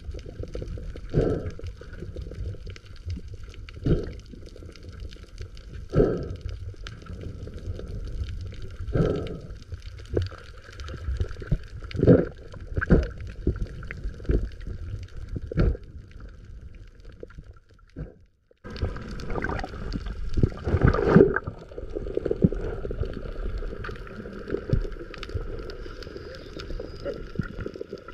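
Muffled underwater water noise on a GoPro Hero 8 filming below the surface, with irregular soft thumps every few seconds. A brief drop-out about two thirds of the way in, then louder rushing and sloshing of water.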